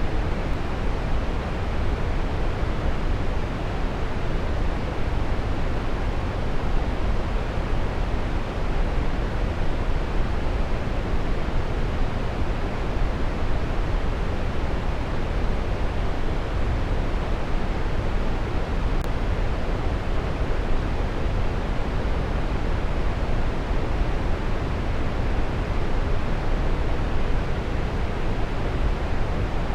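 Waterfall rushing: a steady, unbroken roar of falling water, heaviest in the low end.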